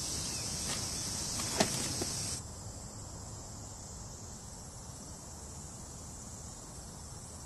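Steady high-pitched insect chorus that drops suddenly to a quieter level about two and a half seconds in, then carries on, with a few light clicks before the drop.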